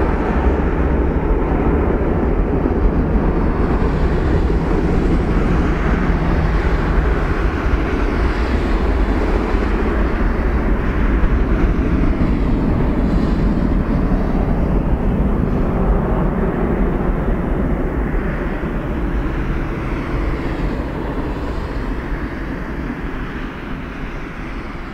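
Twin jet engines of a Boeing 737 airliner running at takeoff power on the takeoff roll, a loud, steady jet noise that fades over the last several seconds as the aircraft moves away.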